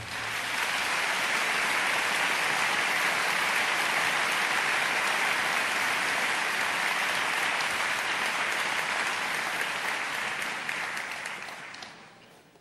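Theatre audience applauding steadily, then dying away near the end.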